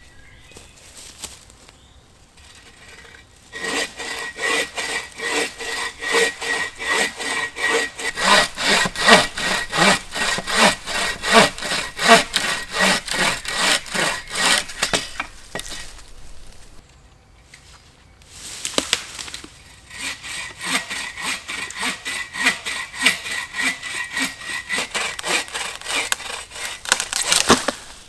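Hand saw cutting through wood in steady back-and-forth strokes, about two a second, in two long bouts with a short pause between them.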